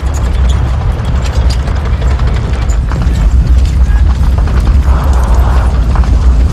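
Tank on the move: a steady low engine rumble with a rapid clatter of track links.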